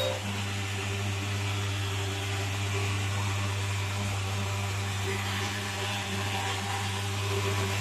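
Portable pulse-jet thermal fogging machine running steadily while spraying mosquito fog: a continuous low drone with a clear pitch.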